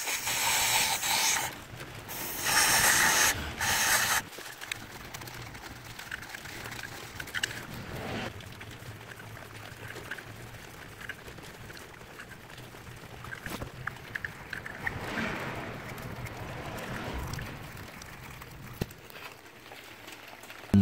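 A person blowing hard by mouth, three rushing blasts of breath in the first four seconds, to blow debris out of the injector opening in a diesel cylinder head. After that come only faint scattered clicks and light scraping.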